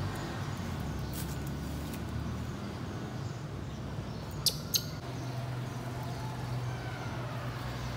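Two short high squeaks from a baby monkey, close together about four and a half seconds in, over a steady low hum.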